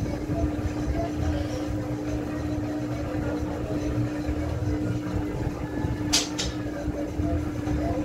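Top-loading washing machine running with a steady hum over a low rumble, and two sharp clicks a fraction of a second apart about six seconds in.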